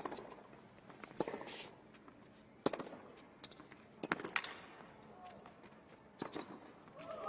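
Tennis rally on a hard court: the ball is struck back and forth by rackets, with sharp single hits about every second and a half.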